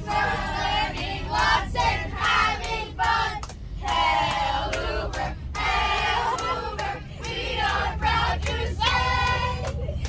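A group of children singing together in phrases with short breaks, over the steady low rumble of a moving coach bus.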